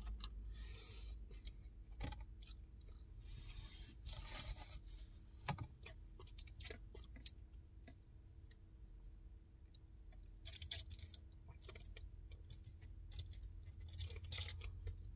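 Faint chewing of a fried chicken sandwich with a crunchy crust: soft crunches and small mouth clicks. Later come a few soft sips through a straw.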